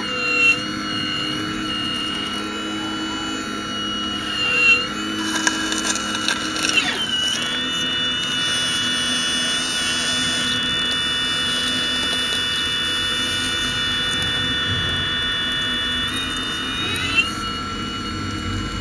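Radio-controlled model Hitachi ZX870 excavator working: a steady high motor whine whose pitch steps up about seven seconds in and changes again near the end as the arm moves. Crackling and crunching of soil and stones around five to seven seconds in as the bucket digs.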